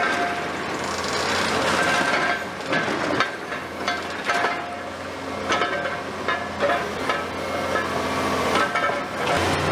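Hydraulic demolition crusher on a Komatsu PC490 long-front excavator working reinforced concrete rubble: irregular cracks and knocks of concrete breaking and steel rebar grinding, over the steady hum of the excavator's engine and hydraulics.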